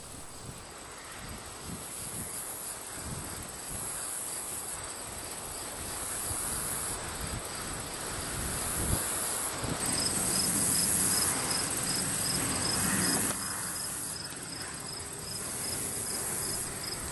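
Field insects (crickets) chirping high and steadily, with a rhythmic chirp of about three a second joining about halfway through. Underneath, a low machine rumble from the corn-detasseling machine grows louder in the middle and eases off near the end.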